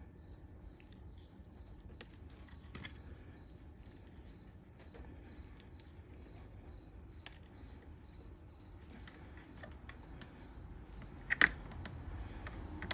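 Small sharp clicks and taps from handling a tool and small plastic and brass parts, with one louder click near the end. A faint high chirp repeats about twice a second throughout.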